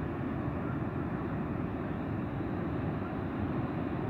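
Niagara Falls' water pouring down in a steady, deep rushing roar, even and unbroken.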